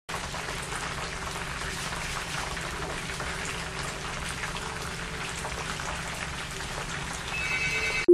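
Chicken pieces deep-frying in hot oil in a wide cast-iron cauldron: a steady crackling sizzle of bubbling oil. Just before the end a few steady high electronic tones come in.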